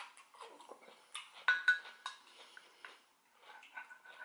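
Chopsticks clinking against a glass bowl while picking up kimchi. There are a few sharp clinks with a brief glassy ring, loudest between one and two seconds in, and fainter taps near the end.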